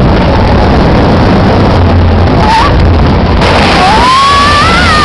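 Storm wind blowing hard and buffeting the microphone: a loud, unbroken rush with a heavy low rumble. In the last second and a half a whistling tone rises and then starts to fall.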